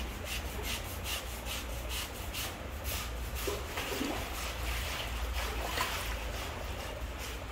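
A hand tool scraping and rasping at the edge of an elephant's back foot in repeated strokes, about two a second at first and then less regular, trimming away the ridge of pad and nail eaten by urine burn.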